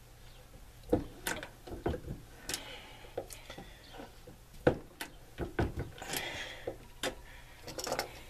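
Single-stage reloading press and Hornady bullet seating die being adjusted and worked by hand to set bullet seating depth: a string of irregular metallic clicks and knocks with soft rustling between them.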